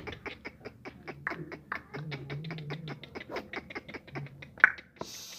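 Animal calls: a rapid, even run of short clicking calls, about eight a second, with one sharp, loud call about four and a half seconds in.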